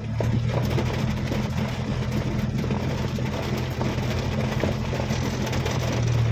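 Car engine running with a steady low drone and a constant hiss of road noise, heard from inside the cabin while driving.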